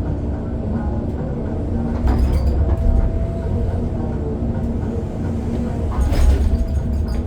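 Heavy diesel engines of a 600-tonne mining excavator and a haul truck running steadily with a deep rumble. There are two louder rushes of noise, one about two seconds in and another around six seconds in.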